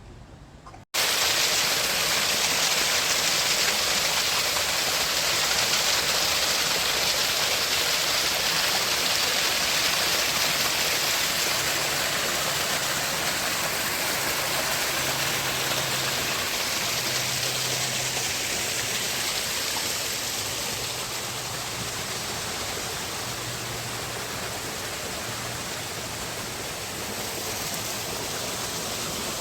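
Steady rush of running or falling water, like a small waterfall, starting abruptly about a second in.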